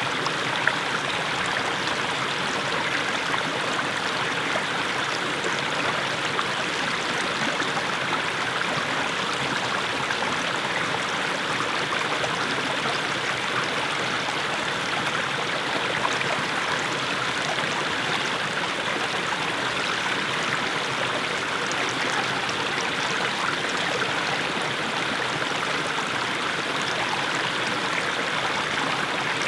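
Small mountain stream splashing steadily over low steps of mossy stones.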